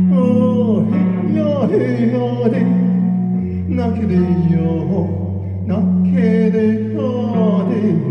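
Live band rehearsal of a song: wordless phrases that slide and fall in pitch, several times, over held low accompaniment notes that change every second or two.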